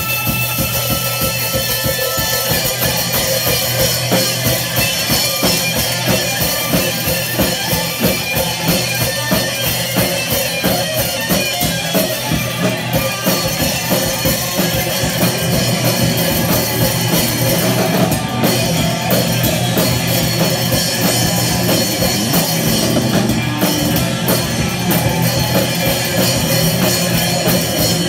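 Punk rock band playing live and loud: electric guitar played through a Sovtek amp over fast drumming on a drum kit.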